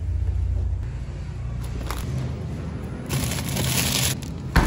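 Plastic-wrapped frozen party pizzas rustling and crinkling as they are handled on a freezer shelf, with a low rumble in the first second and a sharp knock near the end.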